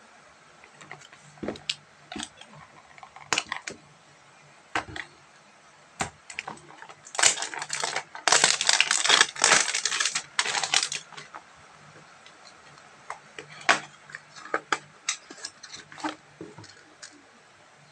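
Handling and opening a small paperboard supplement box by hand: scattered clicks and taps, with a few seconds of loud rustling and tearing of its wrapping in the middle.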